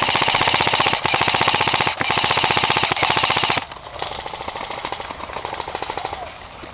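Airsoft electric rifle firing on full auto: a fast, even rattle of shots in three long bursts with short breaks about one and two seconds in. A fainter rattle of fire carries on for a few seconds after it.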